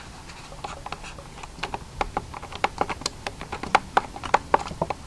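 Handling noise: a run of irregular sharp clicks and taps, sparse at first and coming thick and fast from about a second and a half in.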